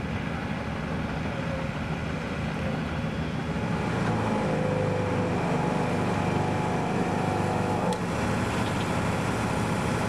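Fire-service pump engines running steadily, pumping extinguishing water through hoses. The engine hum grows louder about four seconds in and dips briefly near eight seconds.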